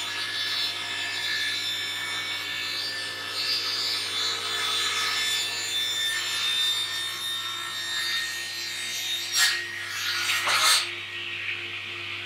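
Prima 2500 sliding panel saw ripping a long timber board, the blade cutting steadily under heavy load, so hard that it is maxing out the saw's motor, over a steady machine hum. Two short, louder rasps come about nine and ten and a half seconds in.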